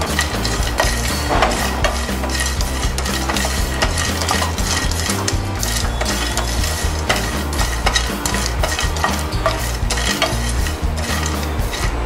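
Shelled peanuts being roasted in a frying pan and stirred with a wooden spatula: a continuous scraping rattle of many small clicks as the nuts slide and knock against the pan.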